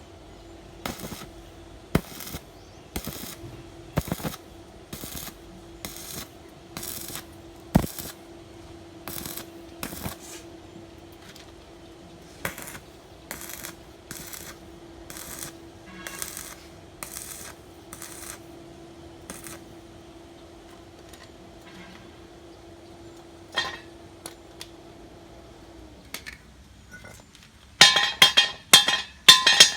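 Metal being struck in a welding job: sharp metallic taps about once a second, gradually thinning out, over a steady machine hum that winds down and stops near the end. Then a rapid flurry of loud metal clinks and knocks.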